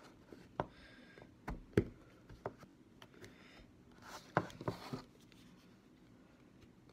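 Green slime being set down and handled on a wooden tabletop: scattered soft taps and clicks, then a short cluster of sticky pops and taps about four seconds in as fingers press into it.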